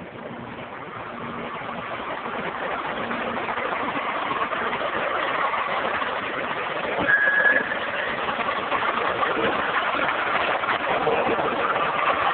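The engine of a 2003 International F-2564 hi-rail rotary dump truck running steadily, growing louder over the first few seconds and then holding, with a brief high squeal about seven seconds in.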